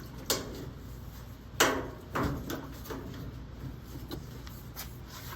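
A few sharp clicks and knocks from parts and tools being handled on a washing machine during suspension-rod work, the loudest about a second and a half in.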